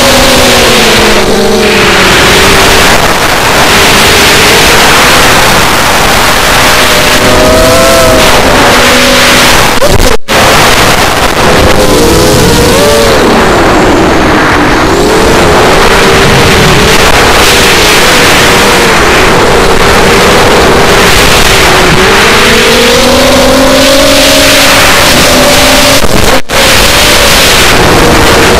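Brushless motors and propellers of a ZMR250 mini quadcopter whining loudly as heard from its onboard camera, the pitch rising and falling with throttle as it banks and dives, over a rush of air. The sound drops out for an instant twice.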